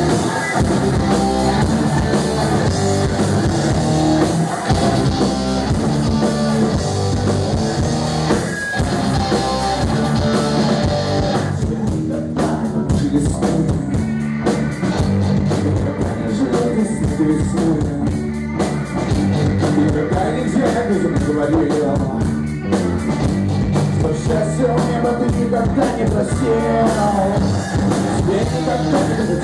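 Live rock band playing: electric guitar, bass guitar and drum kit, with a man singing into a microphone.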